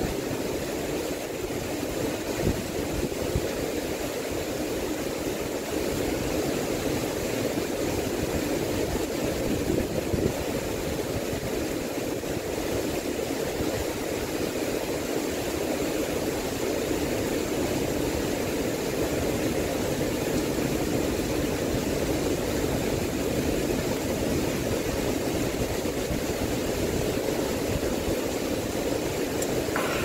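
Steady rushing noise of typhoon wind and rain, with the wind buffeting the microphone in uneven low rumbles.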